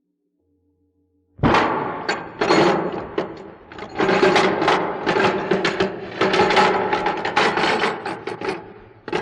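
Silence, then about a second and a half in a sudden, dense clatter of knocks and rattles begins, many uneven strikes a second with a slight ringing after each.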